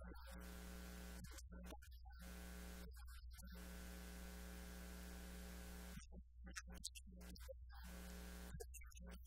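Faint electrical mains hum: a steady low drone with a buzz of higher overtones that repeatedly cuts out and back in.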